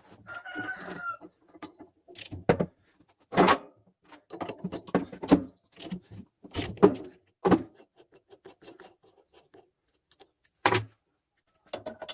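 Metal parts knocking and clinking as they are handled, with irregular sharp knocks and short rattles, about a dozen strong ones.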